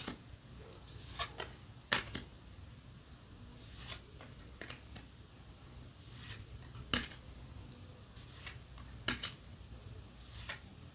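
A stack of Yu-Gi-Oh! trading cards handled one by one, each front card slid off and tucked to the back with a short, sharp swish or snap about every one to two seconds.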